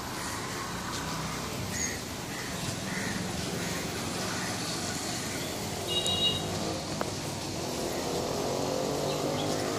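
Outdoor road ambience with a few faint bird chirps, and a motor vehicle's engine growing louder over the second half as it approaches. A brief high tone sounds about six seconds in.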